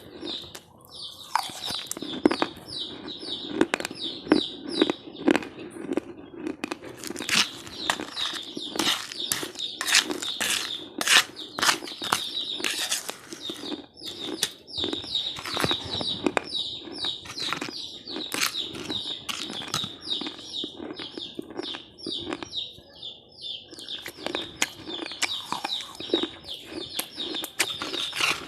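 A person chewing crunchy crumbled food close to the microphone: a dense run of rapid crackles and crunches with the odd louder snap.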